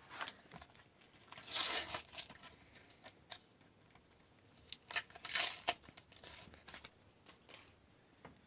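Sticker pack wrappers being torn open, with two longer tears about a second and a half in and around five seconds in, and light crinkling and clicking of stickers being handled in between.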